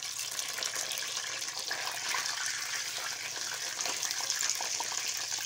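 Rohu fish steaks frying in hot oil in a kadhai: a steady, crackling sizzle.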